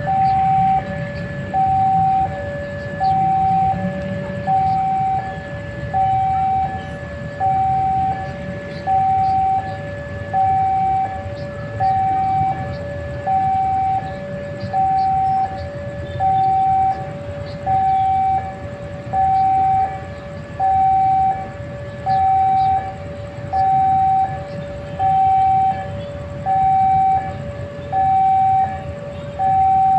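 Railway level-crossing warning alarm sounding, which signals that a train is approaching: an electronic two-tone ding-dong, a higher tone then a lower one, repeating about every one and a half seconds, over a steady low rumble.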